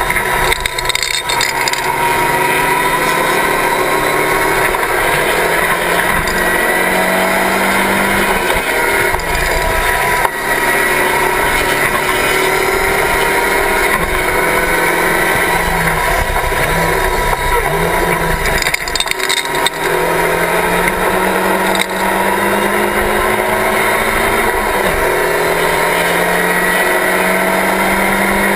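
Locost race car's engine running hard under load, heard from the open cockpit: its note climbs steadily, broken by a few brief dips as the gears change, over steady wind and road noise.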